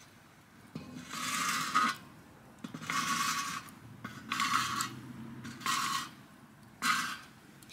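Unfired clay spindle whorls pushed with a piece of wood across a rusty steel fire bowl, scraping in five short strokes.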